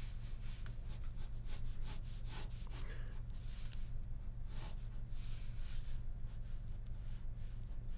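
Ballpoint pen scratching on paper in rapid hatching strokes, a run of quick short strokes and then a few longer ones, over a steady low hum.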